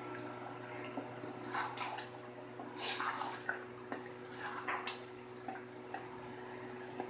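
Wooden spoon stirring and scraping beef karahi in a steel wok, the thick meat masala sizzling and spluttering as it is fried down (bhuna) to cook off its water. Irregular scraping strokes come every second or so, the loudest about three seconds in, over a steady low hum.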